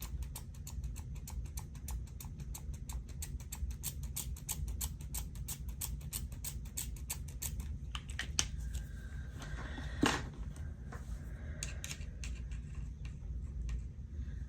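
Rapid light ticks, about five a second, from a brush being worked to splatter gold paint onto a collage page; they thin out after about eight seconds, with one louder knock about ten seconds in, over a steady low room hum.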